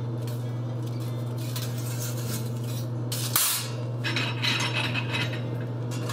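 Forge tongs and tools clinking and scraping against each other and the coals of a coal forge, over a steady low hum. The loudest clank comes about three and a half seconds in.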